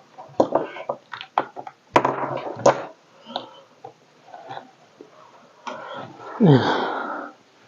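A string of sharp clicks and light knocks from small parts and wires being handled, then a louder scraping sound that falls in pitch about six and a half seconds in.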